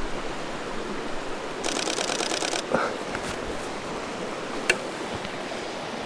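Nikon D500 shutter firing a continuous burst, about ten frames in a second, followed by a single sharp click near the end, over the steady rush of a river.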